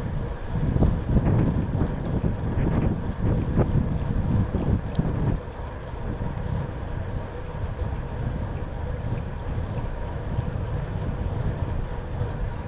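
Wind buffeting the microphone of a rider on a moving bicycle: a low, gusty rumble, strongest in the first five seconds and easing a little after that, with a faint steady hum beneath it.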